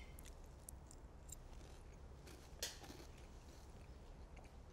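Near silence: low room hum with a few faint clicks, the clearest about two and a half seconds in, from forks on a plate and quiet chewing as the food is tasted.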